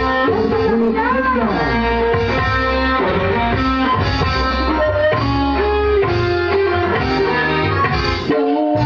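Loud amplified band music led by electric guitar, with melodic lines that bend in pitch over a continuous bass line.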